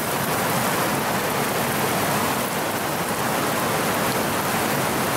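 Heavy rain pouring down steadily, a dense even hiss of drops hitting the ground and the truck.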